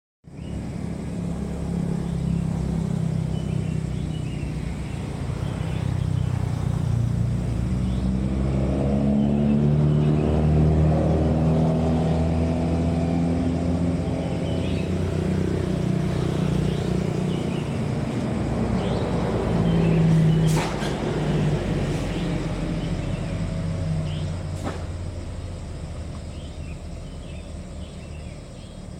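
A low engine drone with several steady pitch lines that drift slowly. It swells and then fades toward the end, with two sharp clicks about two-thirds of the way through.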